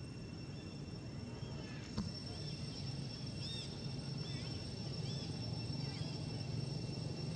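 Outdoor ambience: a steady high-pitched drone, a sharp click about two seconds in, then a run of short chirping calls about once a second, over a low rumble that grows louder near the end.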